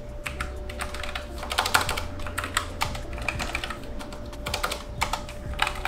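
Typing on a Logitech MX Keys Mechanical keyboard with tactile quiet switches: a continuous, irregular run of key clicks.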